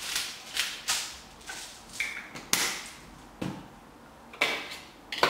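Hand pepper grinder being twisted, grinding peppercorns with a rasping crunch about twice a second. After a short pause, a few knocks of chopsticks in the mixing bowl.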